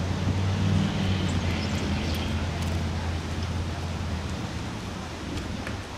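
Low steady hum from a PCC streetcar, fading about two-thirds of the way through, with wind noise on the microphone.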